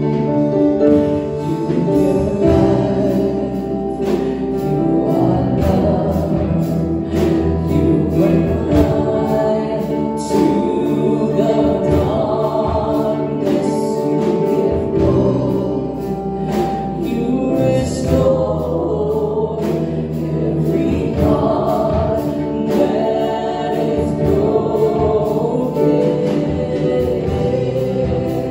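Live Christian worship song: several singers on microphones backed by a band with electric guitar and keyboard, played loud through a hall's PA speakers without a break.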